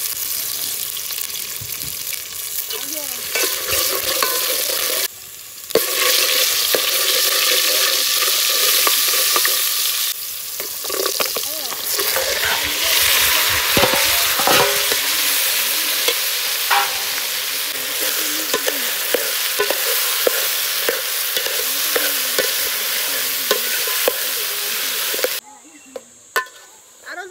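Food sizzling as it fries in a pan, with a spoon stirring and scraping against the pot in scattered clicks. The sizzle cuts off suddenly near the end.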